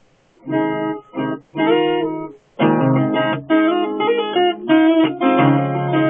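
Acoustic guitar with a capo: three separate chords ring out, then after a short gap the instrumental tune starts in earnest about two and a half seconds in and carries on without a break.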